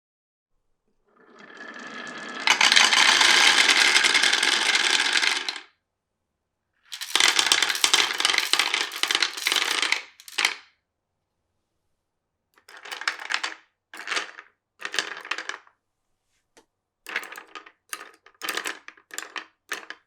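Glass marbles running on a wooden marble run: a rolling sound builds and runs loud for a few seconds, then after a short pause the marbles clatter along for a few more. In the second half come about eight short bursts of clicking as marbles drop and knock against the wooden pieces.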